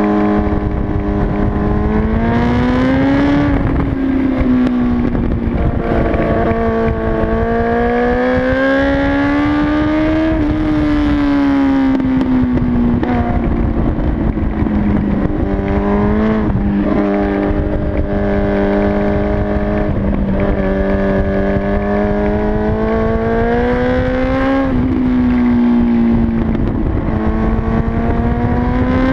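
Motorcycle engine running under way, its pitch climbing as it accelerates and then sinking as it eases off, over and over. Heavy wind rush on the microphone runs underneath.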